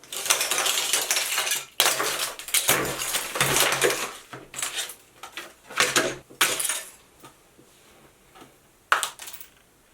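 Small parts of a miniature house kit clattering, scraping and clicking against each other and the work surface as they are handled in a hurry: a dense run of clatter for about four seconds, then scattered knocks and clicks that die away.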